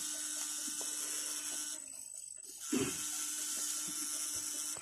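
Homemade electric fishing shocker, a backpack battery and inverter wired to two probe rods, buzzing steadily while switched on. It cuts out for about a second midway, then comes back on.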